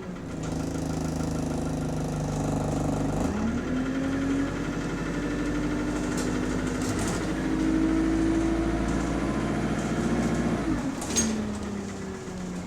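Diesel engine of a single-deck bus heard from on board, pulling: its note rises about three seconds in, holds, climbs a little higher, then drops back near the end. A sharp click comes just after the drop.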